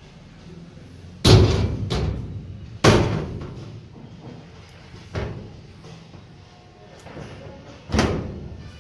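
Steel almirah doors being shut and latched: a string of sharp metal bangs, each ringing briefly, the loudest about a second in and again near three seconds, with lighter ones around five seconds and as the lever handle is worked near the end.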